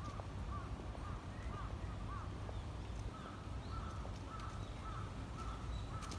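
Birds calling: short, thin call notes scattered at first, then a run of quick repeated calls from about halfway through, all faint over a low, steady background rumble.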